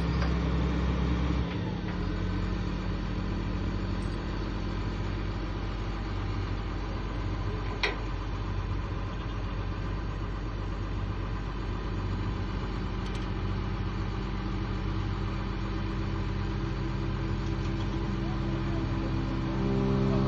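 Heavy vehicle engine running steadily. Its deepest hum drops away about a second and a half in, and there is one short sharp click about eight seconds in.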